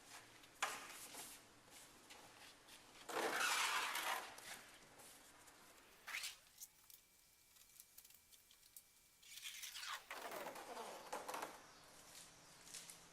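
Backing liner of 3M double-sided adhesive tape being peeled out from under a plastic tailgate spoiler, a rasping rip in several pulls, the loudest about three seconds in and another long one near the end.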